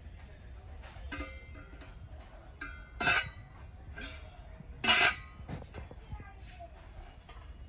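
Brass kitchenware being handled and set down, with metal clinks and knocks that ring briefly. There are two louder clanks, about three and five seconds in.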